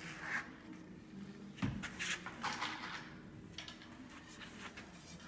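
Light knocks and clicks of wooden chair parts and tools being handled on a workbench, with one heavier thump about a second and a half in.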